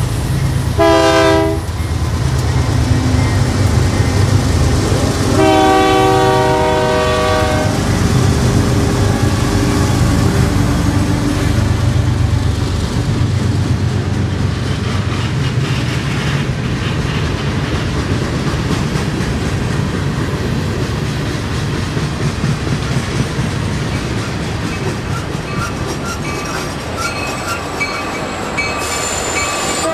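Diesel locomotive horn sounding twice, a short blast and then a longer one of about two seconds. It rides over the steady rumble and wheel clatter of a passing freight train.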